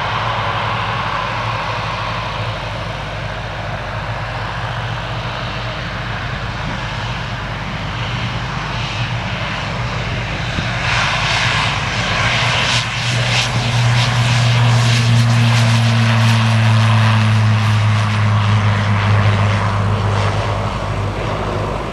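Pilatus PC-12 NG's single Pratt & Whitney PT6A-67P turboprop engine at takeoff power through the take-off roll and lift-off. It makes a steady low propeller drone that grows louder from about halfway through and stays loud near the end.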